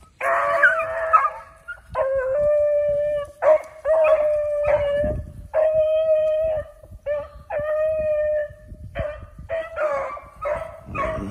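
Beagle baying in a string of long, drawn-out howls, each about a second long, that turn shorter and choppier near the end: a hound giving voice on a rabbit's scent trail.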